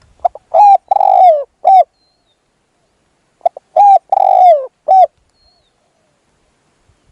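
Spotted dove cooing: two phrases about three seconds apart, each a few short coos and a longer coo that falls in pitch.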